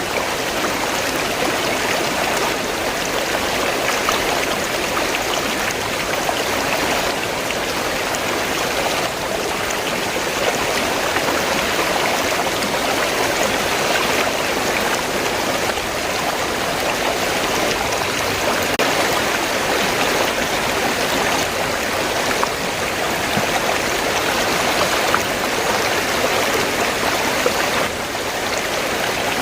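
River water flowing, a steady, even sound of moving water with no pauses.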